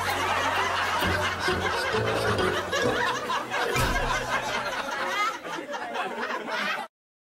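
Laughter and chuckling over background music, cutting off abruptly into dead silence near the end.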